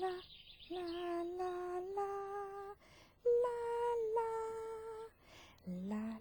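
Slow, gentle wordless tune of long held notes in three phrases, with short pauses between them. A brief high trill sounds at the very start.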